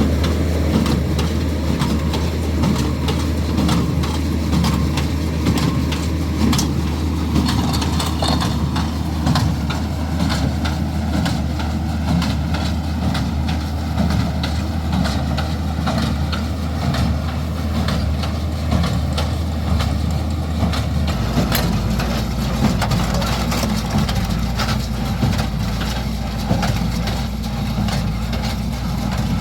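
Tractor engine running steadily, driving a square hay baler, with many short knocks and clatter from the baler's mechanism over the engine. The engine note changes about 21 seconds in.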